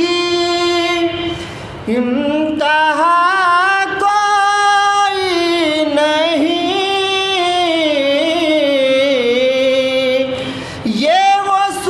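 Soz-khwani, an unaccompanied Shia mourning chant: a male voice sings long, wavering held notes with ornamented turns, pausing briefly for breath about two seconds in and again near the end.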